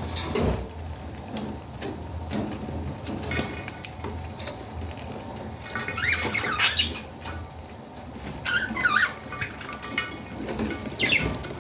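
Baby budgies making short, high squeaky chirps in bursts, loudest a little past the middle and again near the end, mixed with small clicks and taps.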